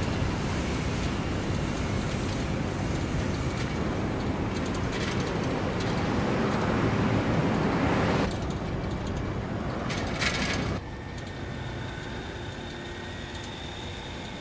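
Road traffic noise, a vehicle rushing past that grows louder and then cuts off suddenly about eight seconds in. It gives way to a quieter outdoor background with a faint thin high tone.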